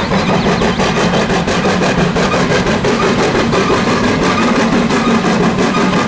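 Steam locomotive working under load as it pulls a train of coaches, its exhaust beating in a rapid, even chuff over the steady running noise.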